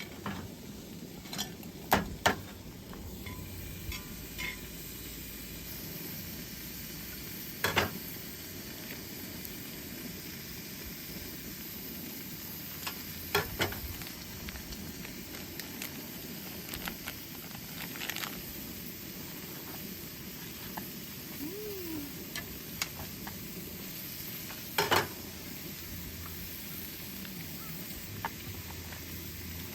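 Food sizzling steadily in a pan, with occasional sharp clinks and knocks of utensils.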